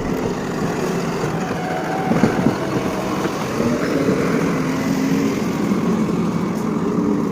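JCB 3DX backhoe loader's diesel engine running steadily under work, its pitch wavering slightly, with a couple of sharper knocks about two seconds in.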